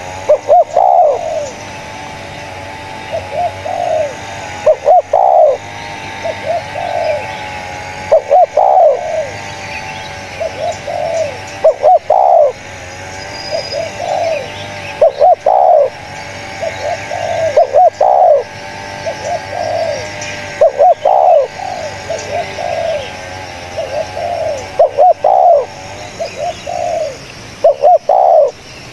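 Spotted dove (tekukur) cooing. It gives a loud phrase of several quick, bending coos about every three to four seconds, with softer coos between. Faint chirping of other birds runs behind it.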